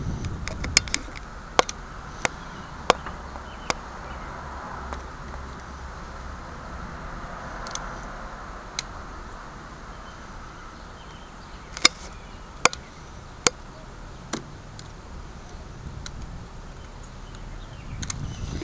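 Utility knife blade cutting into a wooden walking stick along scored pattern lines: about ten sharp clicks at irregular intervals as the blade slices chips away, over a faint scraping.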